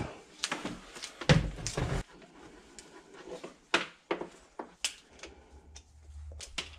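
Handling noise while stripping orange 10-2 electrical cable: scattered short clicks and scrapes, several louder ones in the first two seconds, then fainter and sparser.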